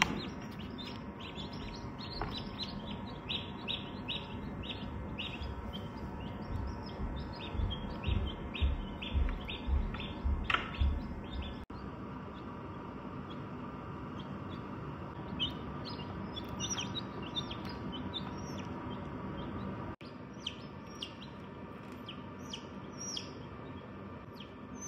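Newly hatched chicken chicks peeping: a quick, uneven run of short high peeps, over a steady low hum.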